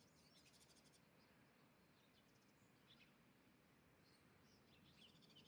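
Near silence, with faint bird chirps in the background: a quick rapid trill near the start and a few short chirps toward the end.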